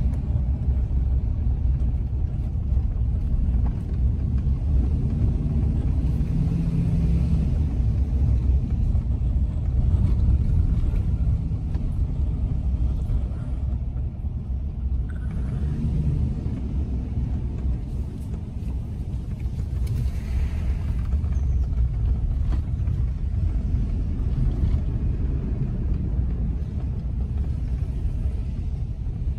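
Car in motion, heard from inside the cabin: a steady low rumble of engine and tyres on the road.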